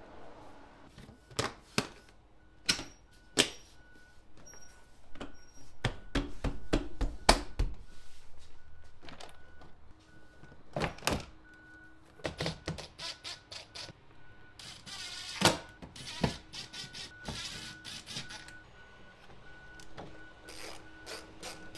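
Plastic door trim panel being pressed and snapped back onto a Dodge Ram truck door: a run of separate sharp clicks, knocks and thunks as the trim clips seat and parts are handled.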